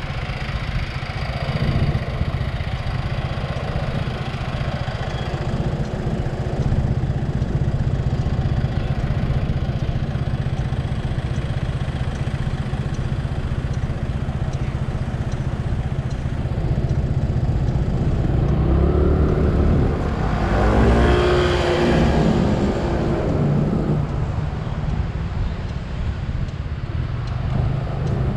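Motor scooter's engine running as it rides along, with wind noise on the microphone. About twenty seconds in, the engine pitch rises and falls for a few seconds and is louder.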